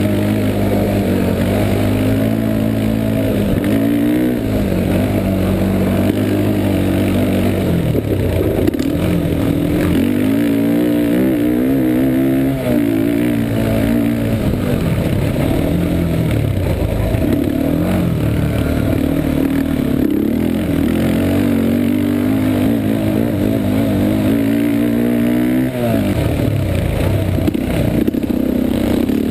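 Yamaha Warrior 350 ATV's single-cylinder four-stroke engine under hard riding, revving up and down: its pitch climbs and then drops sharply several times as the throttle is rolled on and off through the gears.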